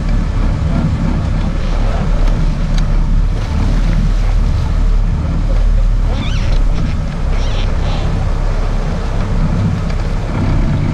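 Sportfishing boat's engines running steadily, a constant low drone under wind and water rushing past the hull.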